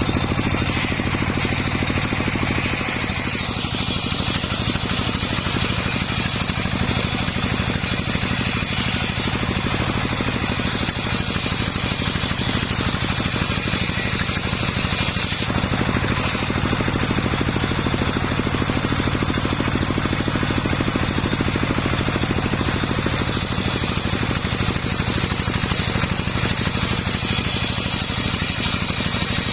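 Homemade circular saw rig running steadily while sawing sengon wood into rafters, its motor giving a constant hum. The higher sound of the blade changes about 3 seconds in and again about 15 seconds in.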